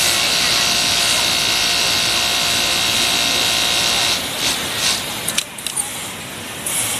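Kingtex industrial sewing machine running steadily at speed, then stopping about four seconds in, followed by a few brief clicks.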